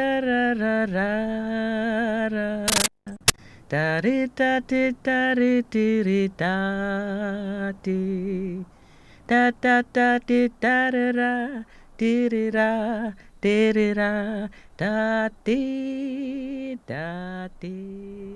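A lone voice singing a slow, unaccompanied melody in short held phrases with a wavering vibrato. A sharp click cuts in briefly near three seconds in.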